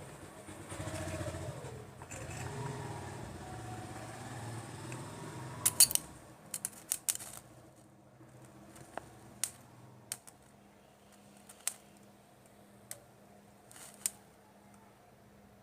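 A vehicle engine runs for about the first six seconds. After that come sharp, brief crackling snaps, a quick cluster and then single snaps every second or two: the arc of a homemade 12-volt battery welder sparking as the electrode touches the metal.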